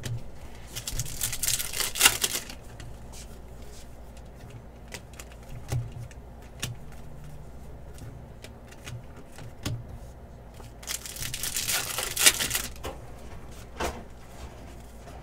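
Baseball card packs being torn open, the foil wrappers ripping and crinkling in two long spells, about a second in and again about eleven seconds in, with light clicks and taps of cards being handled and flipped between them.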